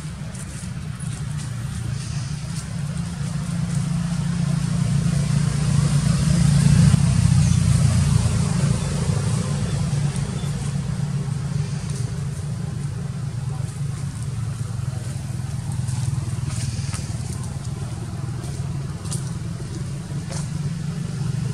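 Low, steady motor-vehicle engine rumble that grows louder about six seconds in, then holds steady.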